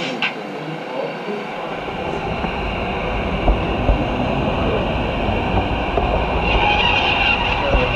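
Gauge 0 model train rolling along the track, heard from a wagon riding in the train: a low wheel rumble starts about two seconds in, with a couple of sharp clicks, and a high squeal joins near the end.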